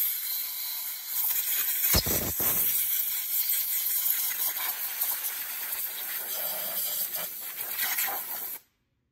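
Compressed-air blow gun hissing steadily as it blows brake cleaner off a Kawasaki V-twin engine. There is a stronger gusty blast about two seconds in, and the hiss stops abruptly near the end.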